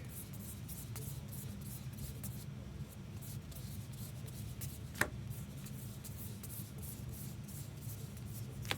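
Trading cards being slid and flipped through by hand: faint, irregular papery rubbing, with one sharp tap about five seconds in, over a steady low hum.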